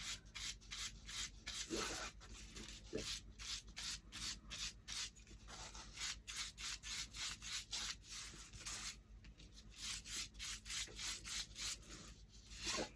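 A chip brush with white paint being dry-brushed across a craft piece. The bristles scrub in quick short strokes, about three or four a second, with a brief pause a little past the middle.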